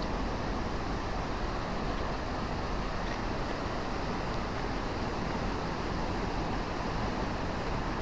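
Steady rushing of a waterfall and its stream, an even roar of falling water with no breaks.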